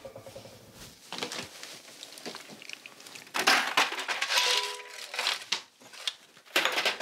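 Kitchen handling noises: a frying pan set into the sink, then rummaging in a freezer, with plastic crinkling and clattering as a plastic ice container is pulled out. The loudest crinkling and clatter comes about halfway through.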